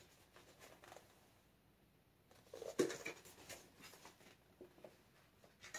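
Pages of a large picture book being turned and handled: soft paper rustles, loudest about three seconds in.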